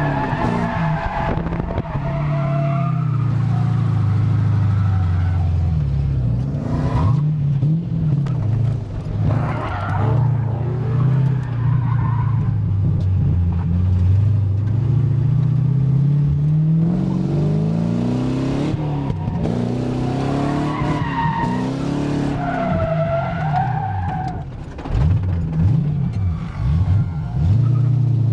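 Drift car's engine revving up and down under hard throttle while its tyres squeal in long, wavering slides.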